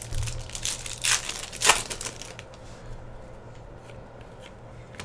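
2016-17 Upper Deck Artifacts hockey cards being handled: a few short rustles and scrapes of card against card in the first two seconds, then only faint ticks.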